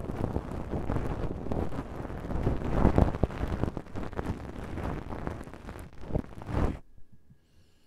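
Close-miked scratching and rubbing of an ear pick in the ear of a binaural ASMR microphone: a dense, crackly rustle that stops abruptly near the end.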